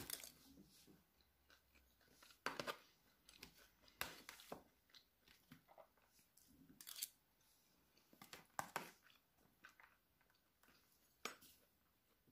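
Faint eating sounds: a person chewing mouthfuls of food and a fork picking food from a plastic lunch box, heard as short crackly clicks every second or two.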